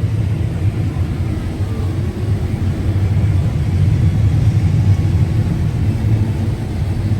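John Deere S660 combine running steadily while harvesting corn: a continuous low rumble of the engine and threshing machinery.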